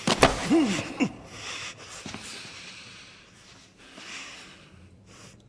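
A gagged man's muffled cry through the gag about half a second in, then heavy, hissing breaths through the nose.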